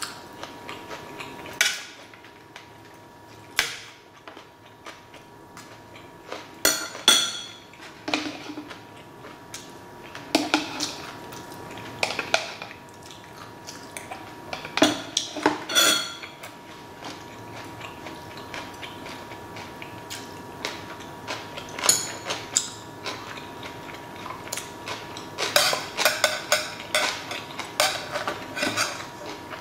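Metal chopsticks and a metal spoon clinking and tapping against stainless steel food trays and ceramic bowls during a meal. The strikes come irregularly, some with a brief metallic ring, and bunch into quick runs of clinks now and then, with a dense run near the end.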